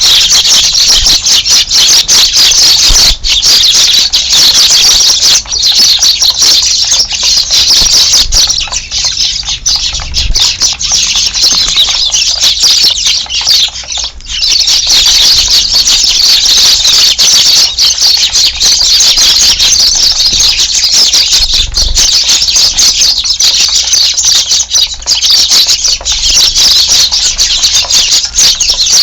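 A large flock of Eurasian tree sparrows chirping loudly and continuously, a dense chorus of overlapping high calls. It thins out briefly from about nine to fourteen seconds in, then fills back up.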